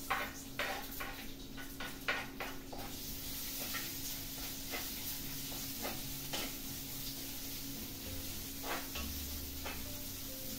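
Sliced onions dropped into hot oil in a terracotta clay pot, a spatula clacking against the pot and plate as they go in. From about three seconds in the oil sizzles steadily while the onions are stirred, with occasional knocks of the spatula.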